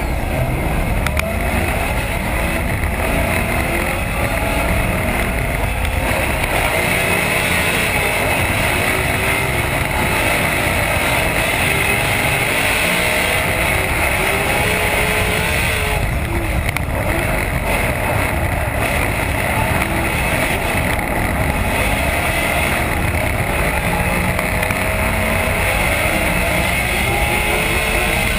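Drift car engines heard from inside the cockpit, revving up and down continuously under hard driving, over a loud rush of noise.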